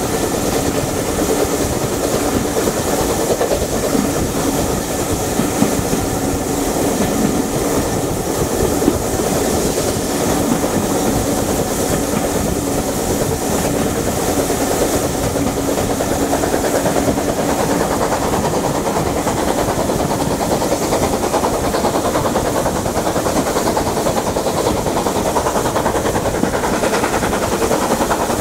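A passenger train running, heard from an open carriage window: steady wheel-on-rail noise from the coaches mixed with the working of the two BR Standard Class 9F 2-10-0 steam locomotives at its head.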